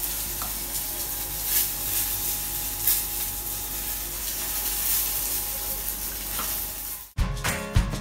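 Steady sizzle of food frying in hot oil, with a few faint clicks over it. At about seven seconds the sizzle cuts off suddenly and music starts.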